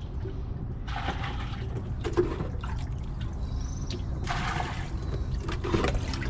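Water splashing and pouring as a swamped small boat is bailed by hand with a cut-off plastic jug: a scoop poured out about a second in and another about four seconds in, over a steady low rumble.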